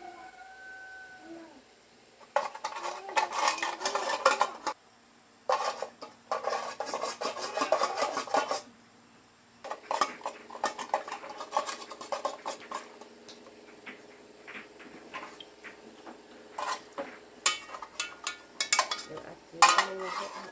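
Small metal parts and tools clattering and clinking as they are handled, in three long spells of rattling followed by scattered single clinks.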